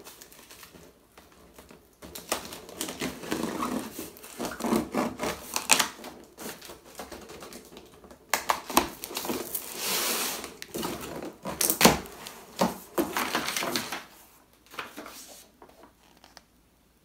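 Cardboard shipping box being opened by hand: packing tape slit and ripped, cardboard flaps scraping and creaking, in irregular clicks, tears and rustles, with one sharp loud rip about twelve seconds in. It dies away shortly before the end.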